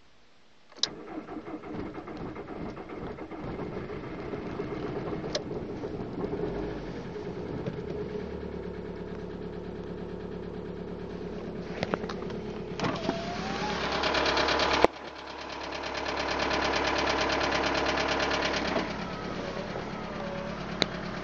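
Volkswagen Golf Mk4's 1.9 TDI (ALH) diesel engine starting from cold about a second in and then idling. Partway through, a louder, rising sound builds and cuts off suddenly, and a few seconds later another loud stretch comes and drops away. This is the strange noise at cold start that the owner is asking about.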